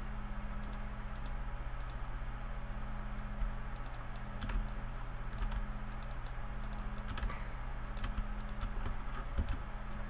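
Computer keyboard keys and mouse buttons clicking irregularly as the computer is worked, over a steady low electrical hum.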